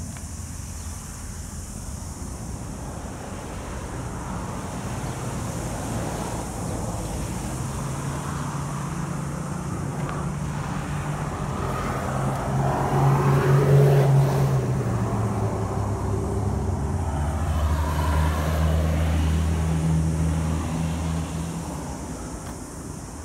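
Road traffic passing: a motor vehicle's engine and tyres grow louder, peak a little past the middle, and drop in pitch as it goes by. A second vehicle follows close behind and fades near the end.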